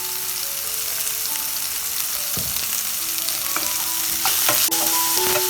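Shallots sizzling as they fry in hot coconut oil, with a spoon stirring and knocking against the pan a few times. Soft background music notes run underneath.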